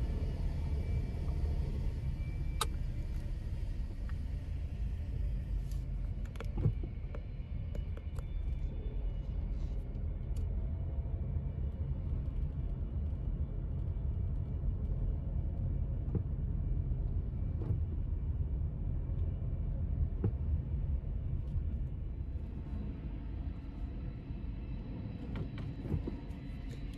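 Steady low rumble of a car driving slowly, heard from inside the cabin: engine and tyres on a concrete deck, with a few light clicks scattered through.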